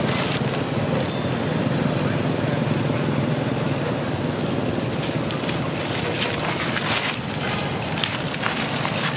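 Dry fallen leaves crackling and rustling in short bursts, over a steady rushing background noise.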